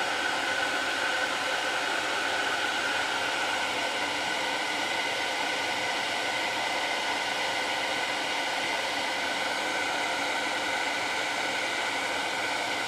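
Gas camp stove burner hissing steadily under a pot of water as it heats towards the boil.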